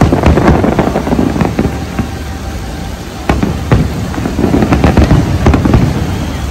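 Fireworks display: dense crackling and popping with bangs, loudest at the start and surging again about three seconds in.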